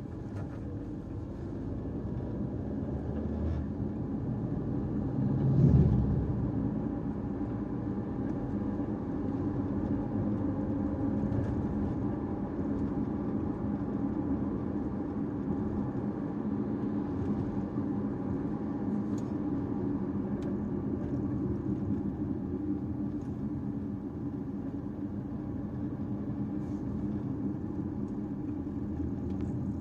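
Caoa Chery Tiggo 5x on the move, a steady engine and road rumble with a louder thump about six seconds in.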